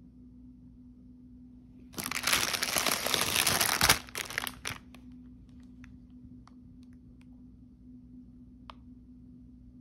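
Plastic bag of crêpes crinkling loudly for about two seconds as it is handled and turned over, followed by a few faint crackles as the plastic settles.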